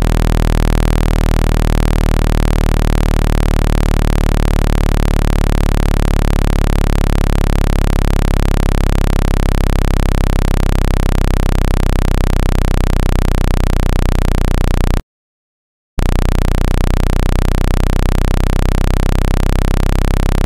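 Speaker-cleaning tone for driving water and dust out of a phone speaker: a loud, steady, low electronic tone with a buzzy edge. It cuts out for about a second roughly fifteen seconds in, then resumes unchanged.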